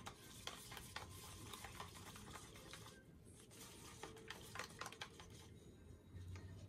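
Faint, irregular scraping and light clicking of a stirring stick against the inside of a plastic cup as acrylic paint is stirred together with pouring medium.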